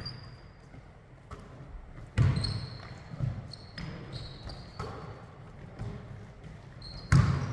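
Basketball bouncing on a hardwood gym floor as a player dribbles, in irregular thumps, with the hardest bounces about two seconds in and near the end.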